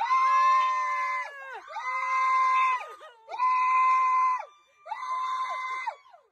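A person screaming over and over: five long, high screams of a second or so each, held at a steady pitch and dropping away at the end, with short breaks between them.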